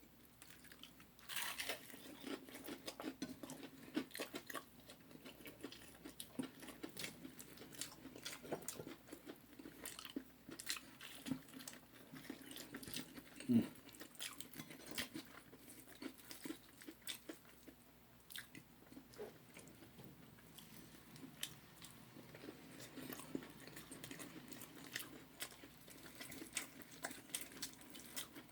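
Close-miked eating of crispy fried chicken: repeated bites, crunching and wet chewing clicks, with one louder bite about halfway through.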